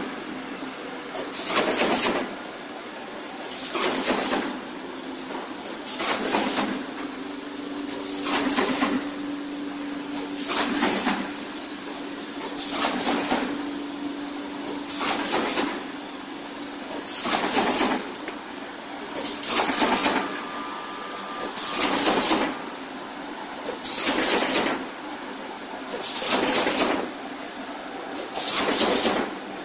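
Automatic cardboard partition assembly machine running through its cycle: a burst of noise about every two seconds, each under a second long, over a steady machine hum.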